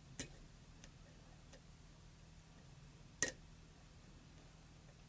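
Lock pick and tension wrench working a Schlag pin-tumbler lock: a few sharp, scattered metal clicks, the loudest a quick double click a bit past three seconds in, over a faint steady hum. The pins are sticking and the lock is resisting picking.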